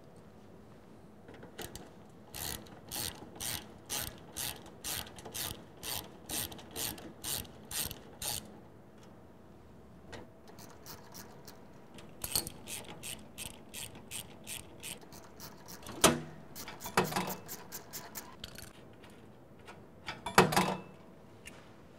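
Ratcheting driver clicking as it backs screws out of a steel hinge, a steady series of about two to three clicks a second that stops after several seconds. Then quicker, fainter ticking and a few louder knocks as the loosened hinge is handled.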